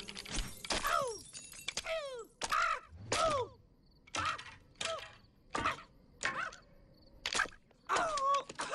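A wooden puppet tumbling down a long flight of stone steps. There are about a dozen sharp knocks, one every half second to second, and each comes with a short cry that falls in pitch.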